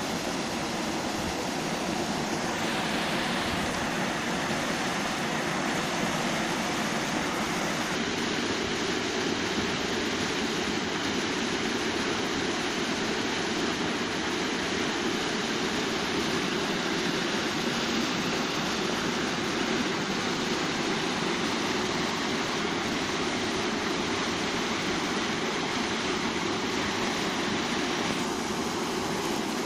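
A small waterfall plunging into a stream pool: a steady rush of falling water.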